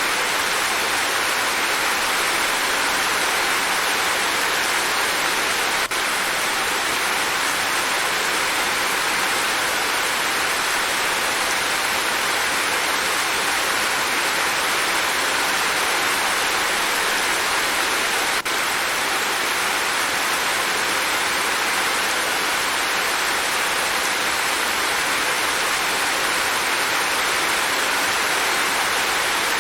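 Steady rain falling: an even, dense hiss.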